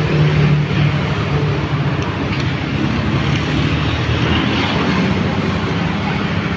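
Yamaha XMAX 250 scooter's single-cylinder engine idling steadily, with a motorcycle passing on the road near the end.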